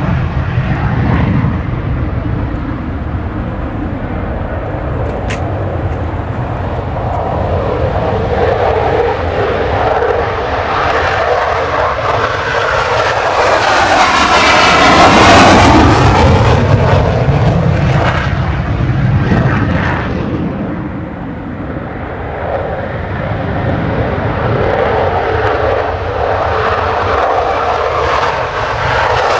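F-16 fighter jets taking off in full afterburner: a continuous jet roar that swells to its loudest about halfway as one jet climbs past, eases off, then builds again as the next jet rolls down the runway.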